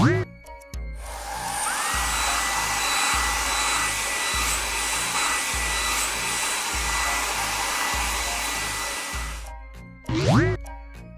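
Cartoon air-dryer blower sound effect: a steady rush of blowing air with a whine that rises and then holds, starting about a second in and fading out near the end. A quick rising glide sound follows, and background music with a low pulse runs underneath.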